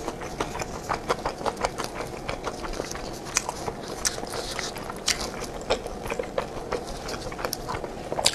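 Close-up chewing of a sticky glutinous-rice meat dumpling (zongzi), with many small, irregular wet mouth clicks and smacks. A louder bite comes near the end.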